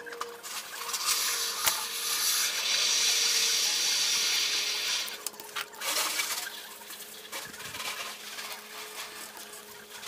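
A stick scratching and rubbing across paper close to the microphone: one long, steady scratch of about four seconds starting a second in, then shorter, broken rubs.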